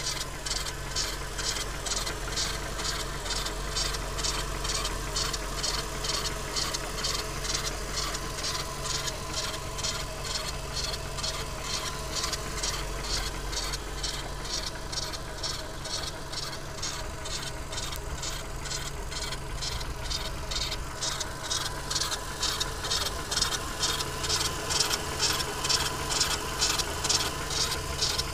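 VW Golf 4 1.6 BFQ petrol engine running with a rhythmic high-pitched squeak, about three chirps a second, coming from the timing belt area.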